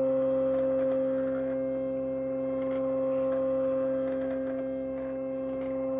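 Silhouette cutting machine's motors giving a steady whine with faint ticks as it feeds the printed sheet on its cutting mat through to read the registration marks.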